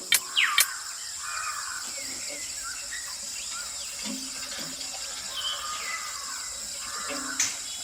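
Water splashing and trickling from a miniature hand pump, with small gurgles and a couple of sharp clicks near the start.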